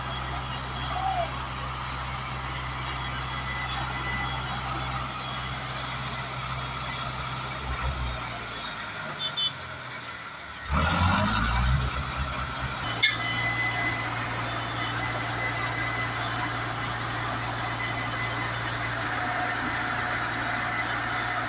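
Engine of heavy road-construction machinery running steadily, sinking away for a couple of seconds about halfway, then revving up with a rising pitch and settling back into a steady run. A sharp click comes shortly after the rev.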